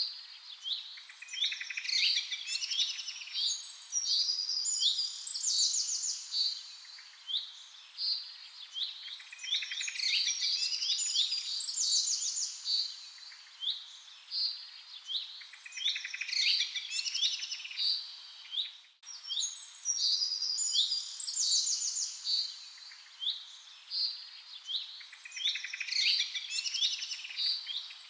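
A songbird singing continuously in varied phrases of quick chirps, trills and clear whistled notes, the same run of phrases coming round again every several seconds. There is a brief break in the sound about two-thirds of the way through.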